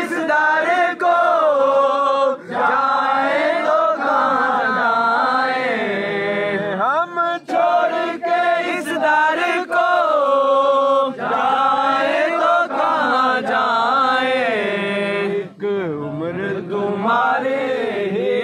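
Men singing an Urdu devotional qawwali. They draw out long, melismatic notes that slide in pitch, with short breaks between phrases.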